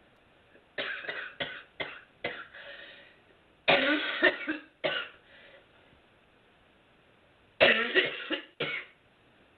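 A woman's smoker's cough, coming in three fits. The first is a string of short coughs about a second in, the second and loudest comes around four seconds in, and the third is near the end.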